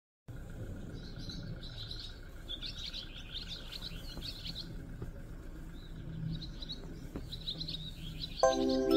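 Small birds chirping and twittering in repeated short bouts over a quiet, snowy background. Background music comes in near the end.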